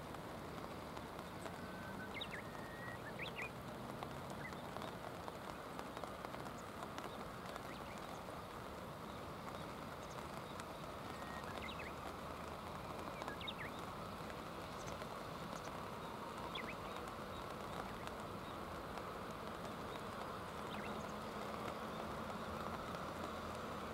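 Steady rain falling on a stony riverbank, a constant even patter. A few faint, short, high bird calls come through it, around two seconds in and again a few times later.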